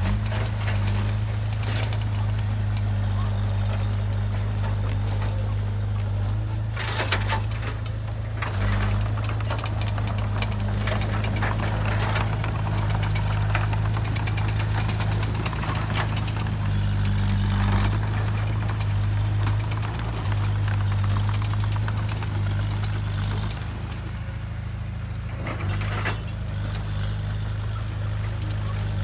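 Heavy diesel construction machinery running steadily with a low engine hum, with two short louder bursts of noise, about seven seconds in and again near the end.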